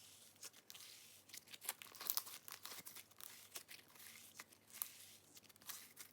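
Hands kneading sticky, freshly activated clear slime made of glue and borax activator, giving faint, irregular crackles and small tearing pops.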